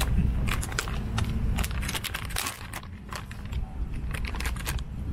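Plastic self-heating meal pouch crinkling and crackling as hands grip and work it: a run of short, sharp crinkles over a low rumble.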